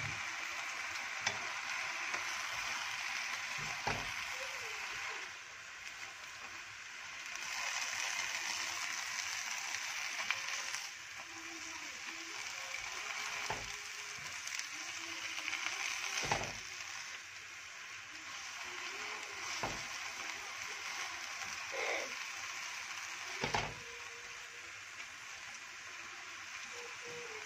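Spinach sizzling in a wok as it is stir-fried, a steady hiss, with the tongs clicking against the pan now and then as the leaves are turned.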